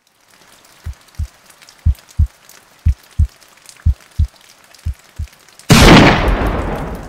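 Heartbeat sound effect: five deep double thumps, about one beat a second, followed near the end by a single loud gunshot sound effect that rings and slowly dies away.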